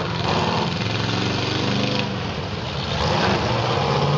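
Demolition derby cars' engines running and revving, their pitch rising and falling as the cars maneuver.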